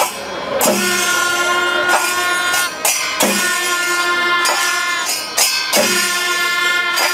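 Festival music: drums and cymbals under a held, pitched wind-instrument melody, with a loud hit every second or so.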